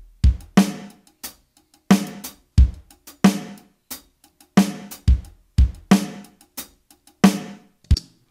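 A simple programmed drum beat of kick, snare and hi-hat at about 90 bpm, on a steady pulse of about three hits a second. Its kick and snare are new sampled drum sounds that Logic Pro's Drum Replacement has put in place of the original kick and snare.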